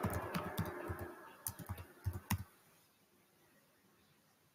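Keys typed on a computer keyboard: a quick run of keystroke clicks that stops about halfway through.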